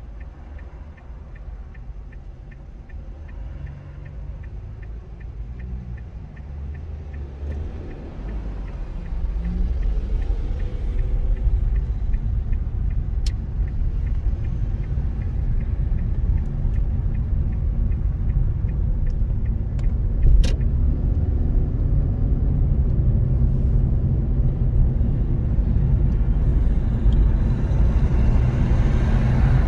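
Inside a car: a quiet idling engine with a steady ticking indicator, then about nine seconds in the car pulls away and the engine and tyre noise rise to a steady rumble as it accelerates and cruises. Two sharp clicks stand out, around thirteen and twenty seconds in.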